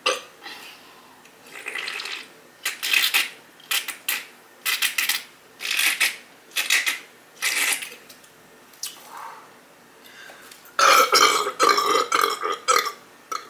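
A woman gulping carbonated ginger ale from a can in a series of short swallows, then letting out a long, loud burp near the end.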